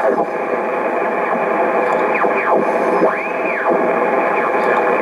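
SBE SB-36 HF transceiver's receiver audio from its speaker while the main tuning dial is turned: a steady hiss of band noise, with whistling tones that glide up and down as the dial sweeps across signals.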